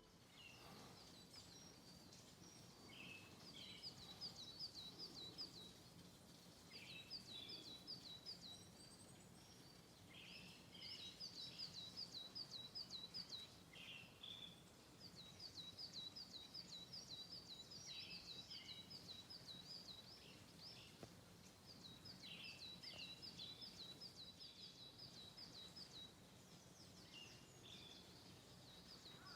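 Songbirds singing faintly: bouts of quick, evenly repeated high notes, each lasting two or three seconds, with shorter, lower calls between them.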